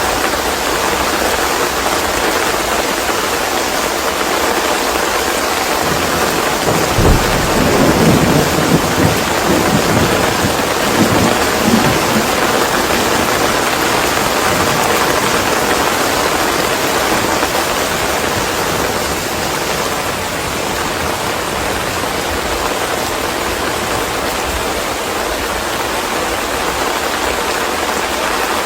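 Steady rain hissing, with a low roll of thunder rumbling for several seconds about a quarter of the way in.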